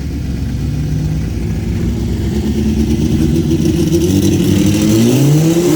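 Car engine accelerating hard under full throttle. The loudness builds steadily, and the pitch climbs over the last second or so as it revs out.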